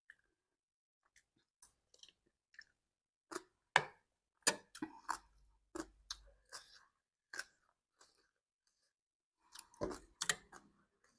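Close-up eating sounds: irregular crunchy bites and chewing of papaya salad and raw vegetables, bunched a few seconds in and again near the end.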